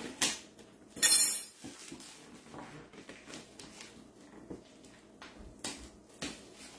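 Hands handling a cardboard mini-helmet box and its packaging on a granite countertop: a short loud rustle about a second in, then light clicks and taps.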